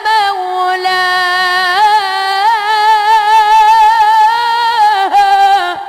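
A child's high voice singing an Islamic religious chant (nasheed), holding one long drawn-out note with wavering ornaments. The note breaks off just before the end.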